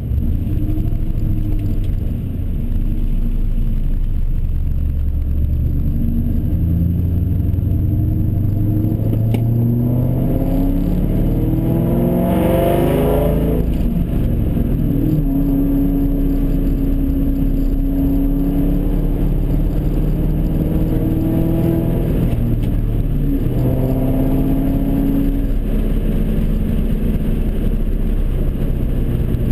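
2002 Mustang GT's 4.6-litre V8 through long-tube headers and a straight-piped exhaust, heard from inside the cabin. It revs up steadily through a gear for about ten seconds, drops at a gear change, cruises at steady revs, then changes pitch again with another shift later on.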